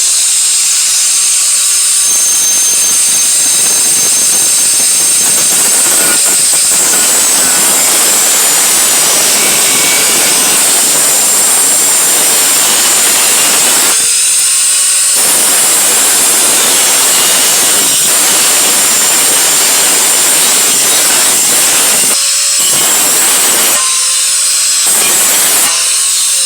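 Corded power tool cutting through sheet metal: a loud, continuous high-pitched cutting noise. It eases briefly a few times, around the middle and near the end, as the motor's pitch shifts.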